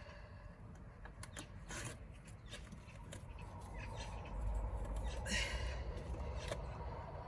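Light clicks, taps and rubbing of hands and tools working on an engine's plug leads, with a short scraping rustle about halfway through.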